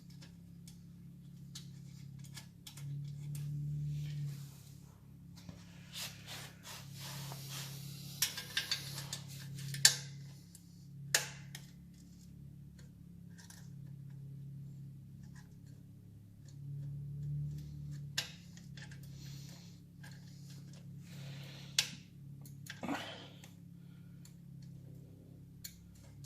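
Scattered sharp metallic clicks and short scrapes of exhaust parts and tools being handled while a motorcycle exhaust is fitted, busiest about a quarter to a third of the way in, over a steady low hum.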